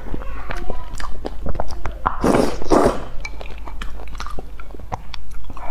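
Close-miked chewing and wet mouth clicks of someone eating noodles and meatballs in broth. There are two loud slurps, a little after two seconds in and again about half a second later.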